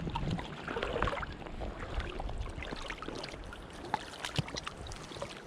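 River water splashing and sloshing around someone wading waist-deep: many irregular small splashes over the steady rush of the current, busiest in the first few seconds and thinning near the end.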